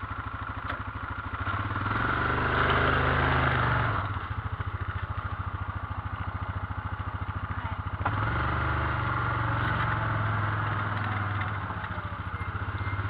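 Yamaha Rhino side-by-side's single-cylinder engine running as the vehicle moves, with steady firing pulses. The throttle opens twice, the engine growing louder about a second and a half in and again just past halfway.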